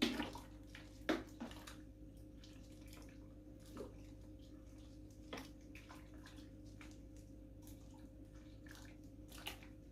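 A ladle scooping a soaked mix of bean sprouts, radish, pear and ginger in its juice out of a rice-cooker pot into a straining cloth: a handful of quiet, short wet clinks and splashes a second or more apart.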